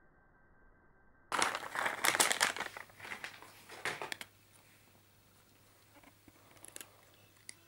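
A cat crunching dry kibble: a dense run of crunching for about three seconds, then a few faint clicks near the end.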